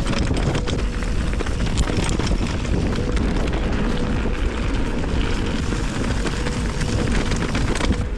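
Wind buffeting the microphone while cycling: a loud, steady rumble heaviest in the low end, with scattered clicks.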